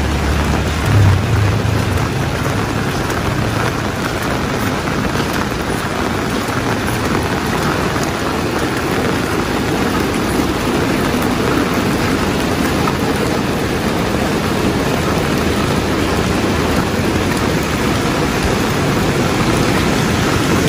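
Steady rain falling, a continuous even hiss of drops. A low rumble is heard underneath in the first two seconds and then fades out.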